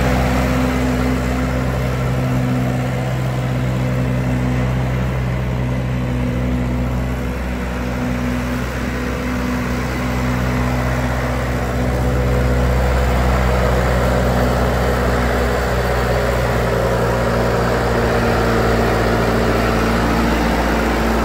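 John Deere 2640 tractor's four-cylinder diesel engine running at a steady speed while the tractor is driven, an even drone that hardly changes pitch. The engine is freshly cold-started without ether, and the owner says it has no blow-by.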